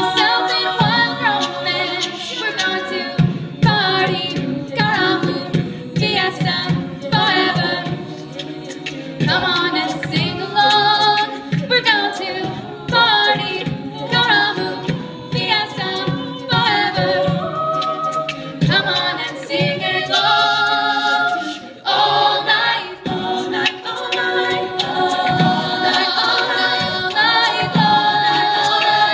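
Mixed male and female a cappella vocal ensemble singing, amplified through microphones.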